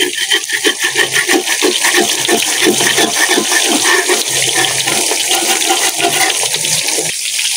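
Banana fritters frying in hot oil in a wok, a steady sizzle, with a metal turner stirring through the oil and knocking against the wok about three times a second. The stirring stops about seven seconds in.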